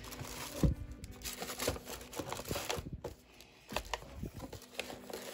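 Tissue paper crinkling and paper craft packages rustling and knocking against the sides of a cardboard gift box as a thick paper flip book is pushed down into it, a run of short irregular rustles and taps.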